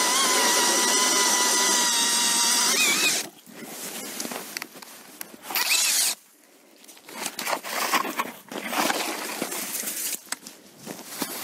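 Cordless drill turning an ice auger through wet ice, its motor whining loud and steady with a wavering pitch under load, rising briefly before it stops about three seconds in. A short spin of the drill follows near six seconds, then irregular scraping and crunching as the auger is worked out of the slushy hole.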